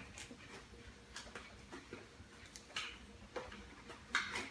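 Scattered light clicks and soft rustles of hands fitting drone gear into the compartments of a padded drone bag, about half a dozen irregular handling noises with the sharpest near the end.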